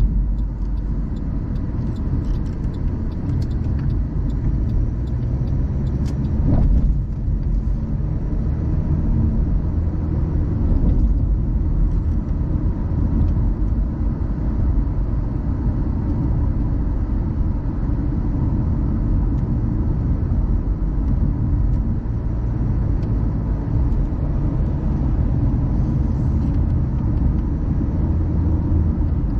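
Car driving at steady speed: a continuous low rumble of engine and tyres on the road, with a brief bump about six seconds in.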